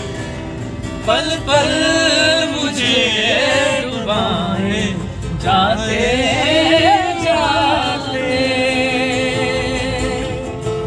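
Men singing a song together, ending on a long held note with a wavering pitch.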